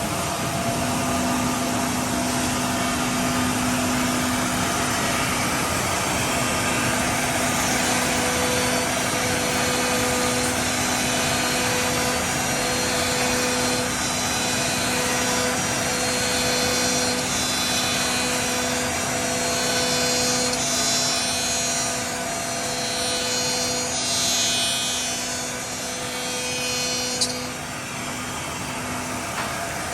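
CNC machine running a cutting job for oval and round slots: a steady spindle hum with cutting noise, and a higher tone that comes and goes every second or two as the tool moves. A single sharp click about three seconds before the end.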